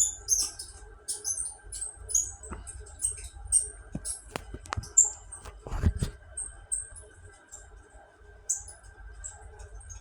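Electric fan running with a steady hum, making an irregular string of short, high-pitched squeaks and chirps: the odd noise the fan is making. A few sharp knocks come about four to six seconds in.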